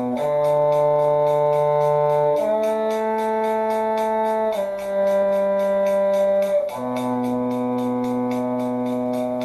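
An instrument playing long, steady held notes about two seconds each, changing pitch four times: the shifting pattern B, D, A, G, back to B, in the cello's low register.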